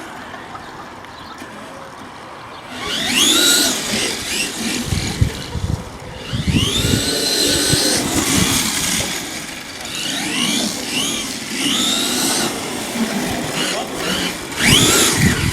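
Brushless electric motor of a 1/5-scale RC monster truck whining up and down in about five bursts of throttle, each a rising then falling whine, with rumbling and knocks from the truck driving over the ground.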